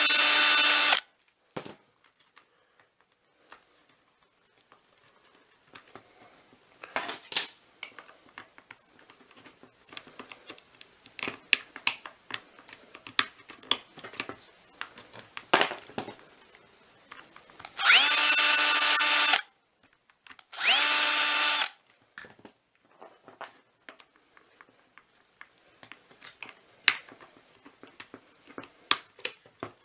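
Small electric screwdriver whirring in short bursts as screws are driven out of a plastic vacuum floor head: once at the start, then twice in quick succession about two-thirds of the way through, each with a whine that rises as the motor spins up. Between the bursts come scattered clicks and rattles of the plastic housing being handled.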